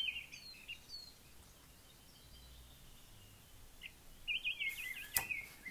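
Birds chirping in the background: a few short chirps at the start and a quick run of warbling chirps about four and a half seconds in, followed by a single sharp click.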